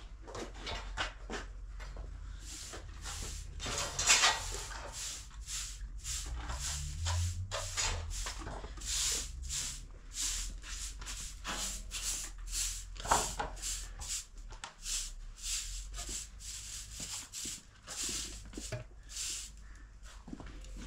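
Short straw hand broom sweeping a concrete floor: a long run of brisk, scratchy strokes, a couple a second.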